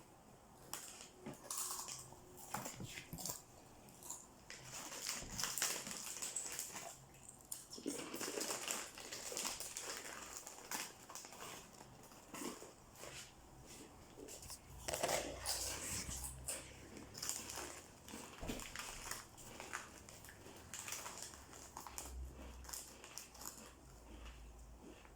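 Irregular crinkling, rustling and light taps of hands shaping cookie dough, in a small room.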